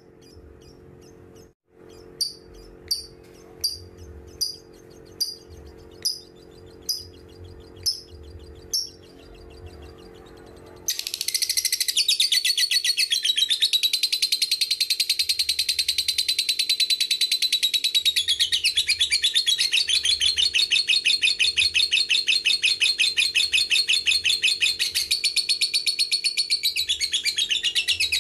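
Lovebird calling: about ten single sharp chirps, a little under a second apart, then, a little before halfway, a long, loud, unbroken rapid chattering trill, the 'ngekek', that carries on without a break.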